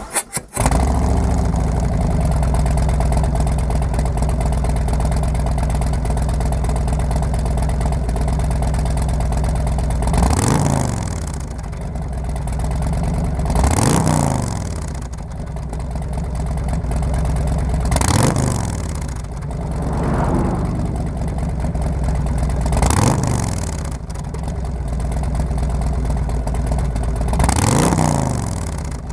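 Harley-Davidson Road Glide V-twin idling through TAB Performance 50 Cal slip-on mufflers, revved five times, each rev rising in pitch and falling back to idle.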